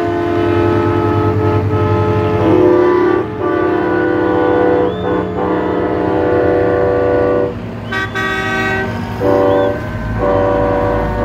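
Semi-truck air horns blowing long, held blasts, several pitches sounding together as a chord, with a few short breaks. A low diesel engine rumble runs underneath.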